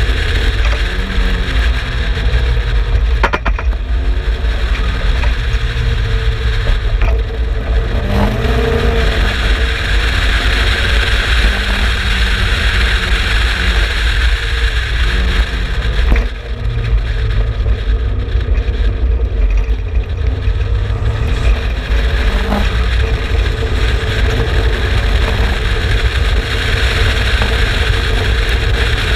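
Turbocharged Mazda BP four-cylinder engine of an Exocet running hard at track speed, its pitch rising and falling with the revs over a constant heavy rumble. There is a brief dip in loudness about sixteen seconds in.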